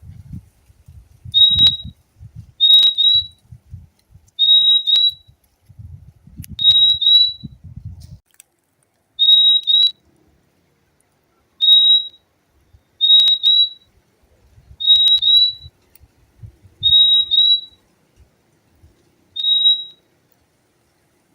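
Purple-throated euphonia (fim-fim) calling: short, high whistled notes, mostly in quick pairs, repeated about every two seconds. A low rumble runs underneath for the first eight seconds or so and comes back faintly in the second half.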